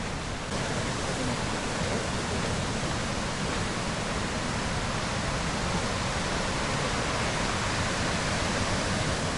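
Iguazu Falls' huge volume of water plunging and crashing, heard up close as a steady, dense rush of noise that gets slightly louder about half a second in.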